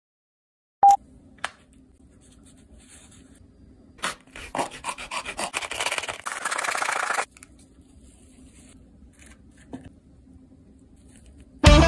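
Hacksaw blade sawing back and forth through a plastic Keurig K-Cup coffee pod in quick rasping strokes for about three seconds, cut off abruptly. A sharp click comes about a second in, and music starts near the end.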